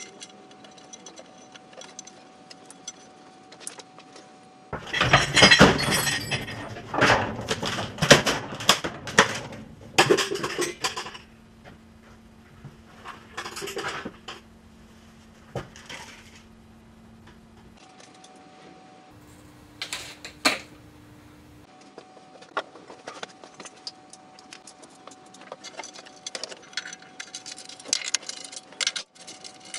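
A shop work light crashes and clatters to the floor about five seconds in, a loud clatter with rattling that lasts several seconds. Near the end come light metallic clicks of clutch bolts being run in with a socket and extension.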